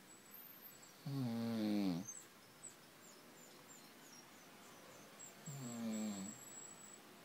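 A sleeping cat snoring: two long snores, about four seconds apart, with quiet breathing between them.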